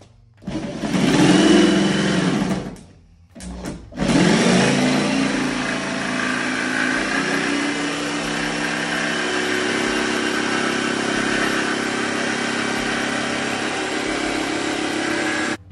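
Jigsaw with a thin blade sawing through the solid aluminum wall of a truck camper shell. It runs briefly about half a second in, stops, then speeds up again about four seconds in and saws steadily until it cuts off suddenly near the end.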